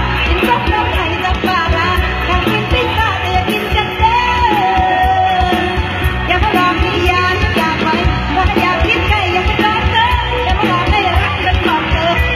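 Live mor lam band music from the stage: a heavy, steady drum and bass beat under a singer's bending melodic line, with one long held note about four seconds in.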